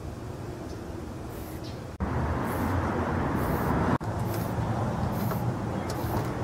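Short hisses of an aerosol spray-paint can, about six brief sprays roughly a second apart, over a steady low rumble of street traffic that gets louder about two seconds in.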